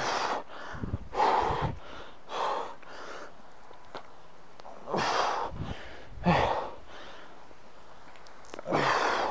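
A man breathing heavily under exertion while swinging a 25-pound clubbell, with about six loud, noisy breaths each lasting about half a second and spaced one to three seconds apart.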